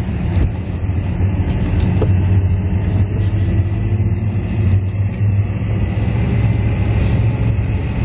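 Steady low rumble of a car's engine and tyres, heard from inside the cabin while the car drives along the road.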